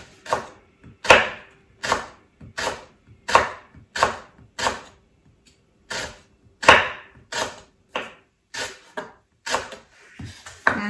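Knife chopping food on a cutting board in slow, even strokes, roughly one to one and a half a second, with a short pause about halfway through.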